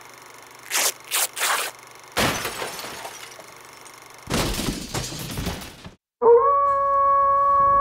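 Intro sound effects for an opening title sequence: three short hissing bursts, then two crashing swells that each die away. After a moment of silence, a held horn-like tone with several overtones starts about six seconds in.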